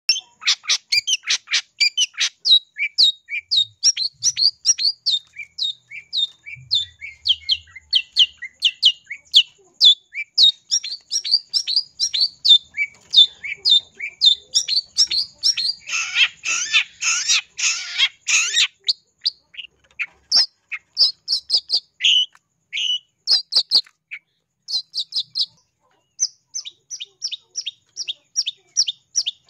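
Long-tailed shrike calling: a fast run of short, sharp high-pitched calls, about four a second. About two-thirds of the way through they break into a harsh, rasping chatter, then the calls come more sparsely.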